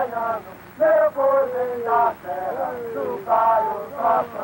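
A man singing a slow, chant-like melody, with held notes that slide downward at the ends of phrases.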